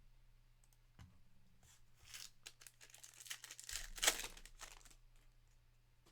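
Trading cards and their pack wrapper being handled: tearing and crinkling in a few scratchy bursts from about two to five seconds in, loudest near the four-second mark, after a single click about a second in.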